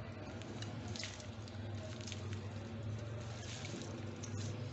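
Chopped wet spinach leaves rustling and squishing as they are scraped out of a steel colander into a pot with a silicone spatula, with a few soft taps and scrapes. A steady low hum runs underneath.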